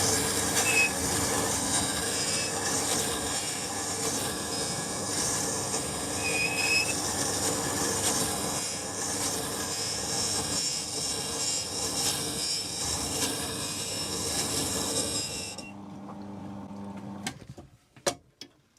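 Steel chisel being ground on the slow-turning, water-cooled stone of a Scheppach Tiger 2000S wet grinder: a steady scraping hiss over the machine's hum, as a worn edge is taken back to a 25-degree bevel. About 16 seconds in the grinding stops, a low hum carries on briefly, and then come a few clicks.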